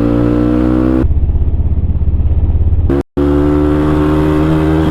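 CX300C motorcycle engine running on an open exhaust with the dB killers removed, its pitch climbing slowly as it pulls. About a second in the sound turns to a duller, throbbing chug, cuts out briefly about three seconds in, then the steady engine note returns.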